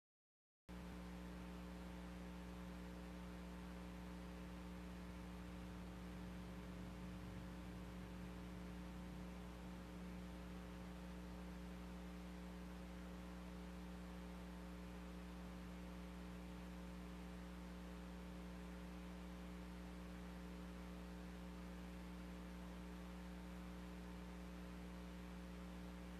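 Steady low electrical hum with a faint hiss, cutting out for a moment right at the start.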